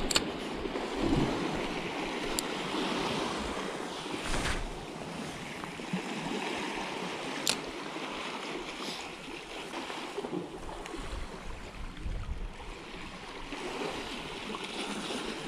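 Small waves washing and fizzing over a rocky shore ledge, with wind on the microphone and a few sharp clicks.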